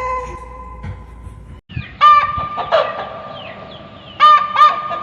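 A cat's meow ends, then after an abrupt cut, chickens cluck: four loud, sharp calls, two close together about two seconds in and two more near the end.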